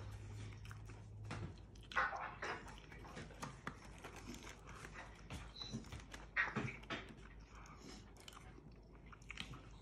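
A person chewing mouthfuls of a burger up close, with irregular soft smacking and crunching and a few louder bursts about two seconds in and near six and a half seconds.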